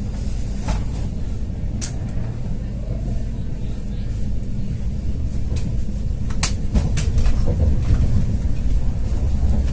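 Running noise inside a BR 429.1 (Stadler FLIRT) electric multiple unit at speed: a steady low rumble of wheels on track that grows louder in the second half, with a few sharp clicks.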